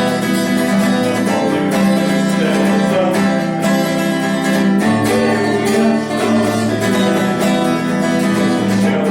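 Acoustic guitar strummed as a bard-song accompaniment, its chords changing every couple of seconds.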